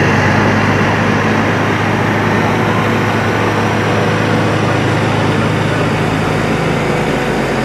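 Tractor engine running as the tractor drives slowly past, a steady low drone.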